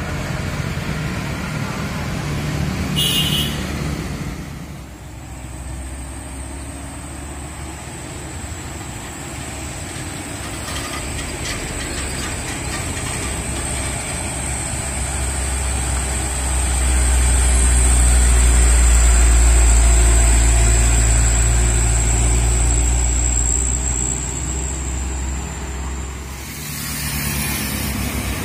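Diesel truck engine rumbling as a Mitsubishi Fuso Canter truck climbs past, growing loud in the middle and then fading, with a steady high whine over it. Earlier, passing traffic with a brief hiss about three seconds in.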